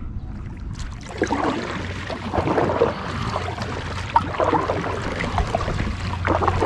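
Kayak paddle strokes: the blade dips and splashes on each stroke, with water trickling off it, starting about a second in.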